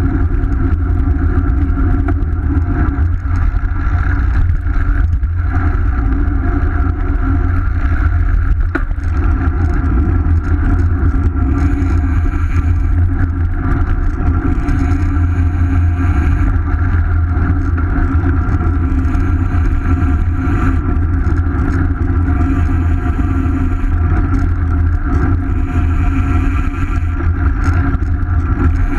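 Steady low rumble of wind on the microphone of a camera mounted on a moving road bike, with road and tyre noise beneath.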